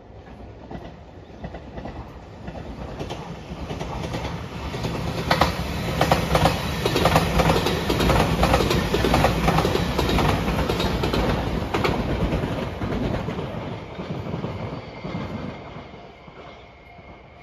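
JR Shikoku 8600 series electric limited express train passing. The rumble builds over several seconds, then wheels clack over rail joints in quick runs at its loudest, and it fades away as the train recedes.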